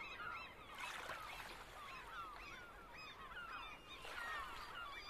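A flock of birds calling faintly: many short, overlapping calls that glide up and down in pitch.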